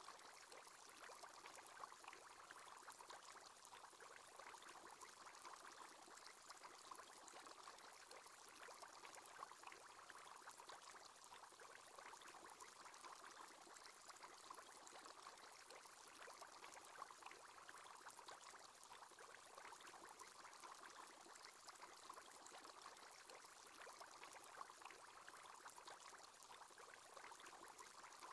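Faint, steady bubbling of water from an aquarium aerator's bubble column, an even fizz of many small bubbles.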